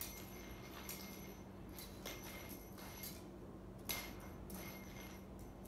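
Light clicks and clinks about once a second, the sharpest near four seconds in, some followed by a faint high ringing, over a steady low hum.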